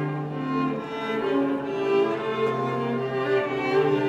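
Background music of bowed strings, violin and cello, playing slow, held notes.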